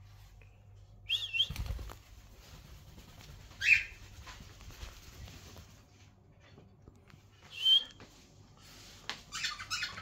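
Cockatiel giving short, high whistled chirps, three of them a few seconds apart. About a second and a half in there is a soft thump and a flutter of wings. A quick run of small clicks follows near the end.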